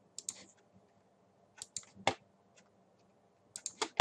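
Sharp clicks of a computer mouse and keyboard, in small groups of two or three: a few near the start, a louder pair around the middle, and a quicker run of clicks near the end.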